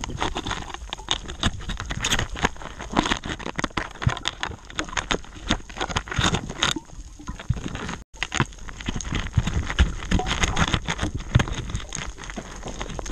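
Underwater crackle: a dense, irregular run of sharp clicks and small knocks, heard through a camera housing on a rocky reef. The sound drops out for an instant about eight seconds in.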